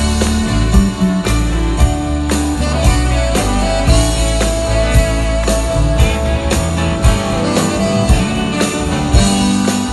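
Live rock band playing an instrumental, heard from the audience: electric guitar, saxophone and drums over a steady beat, with one long held note in the middle.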